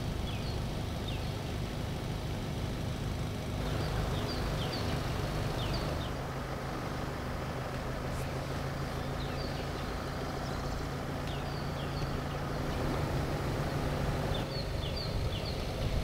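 A vehicle engine idling with a steady low hum. Small birds give short, high, downward-slurred chirps in scattered clusters over it.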